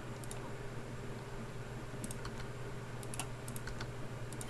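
Computer keyboard keys clacking in a few scattered short clicks and pairs, as Blender shortcuts are pressed, over a steady low electrical hum.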